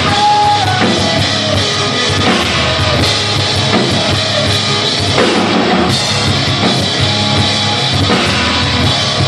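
Rock band playing live on stage, with a drum kit driving the beat under electric guitar.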